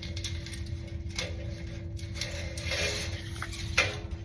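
Coiled dryer heating element being worked into the slots of its heater housing: light metallic clicks and scraping, with one sharper click near the end, over a steady low hum.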